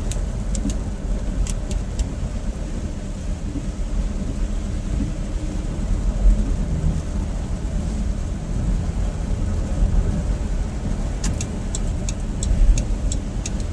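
Steady low rumble of a car's engine and tyres, heard from inside the cabin while driving. Runs of light, evenly spaced ticks come in the first two seconds and again from about eleven seconds in.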